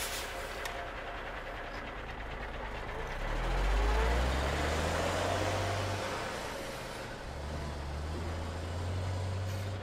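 Electronic engine sound from a Bruder toy truck's light-and-sound module, rising in pitch about three seconds in, running for a few seconds, then starting again near the end.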